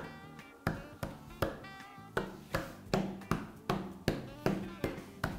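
Background music with a steady ticking beat, about two and a half clicks a second, over a low pulsing bass. It has a few short high melodic notes near the start and again about two seconds in.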